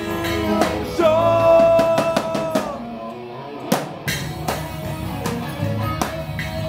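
Rock band playing live in rehearsal: drum kit, electric guitar and a long held note about a second in. Around three seconds in the band drops out briefly, a single sharp hit lands, and the drums and band come back in about four seconds in.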